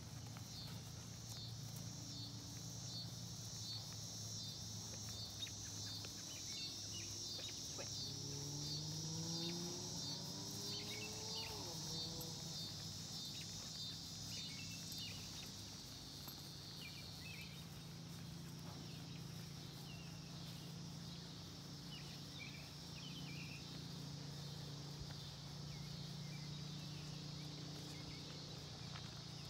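Faint evening insect chorus: a high chirping that pulses at an even rate for the first half, then runs on as a steady trill. Underneath there is a low steady hum, and a faint rising whine around ten seconds in.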